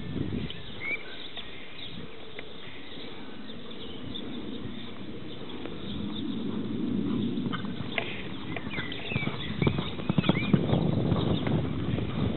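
A horse's hooves thudding on a sand arena as it is ridden at a trot and canter, with the beats getting louder near the end as it takes a jump.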